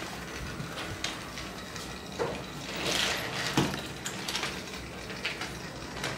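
Plastic Thomas & Friends Trackmaster toy trains moved along plastic track: a run of small plastic clicks and knocks, louder around three seconds in.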